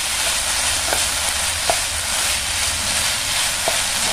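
Minced chicken (keema) frying with coriander in a pan, sizzling steadily as a wooden spatula stirs it, with a few light taps of the spatula against the pan.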